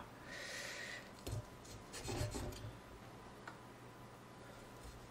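Kitchen knife slicing raw beef on a wooden cutting board: faint scraping strokes through the meat, with a couple of light taps of the blade against the board.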